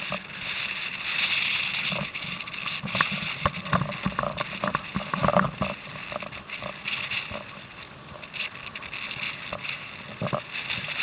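Water splashing and slapping around a kayak, with wind rushing over the microphone; a cluster of irregular splashes and knocks comes in the middle.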